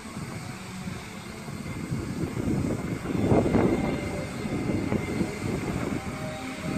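Wind buffeting the microphone in gusts, a low rumbling rush that swells to its strongest about halfway through.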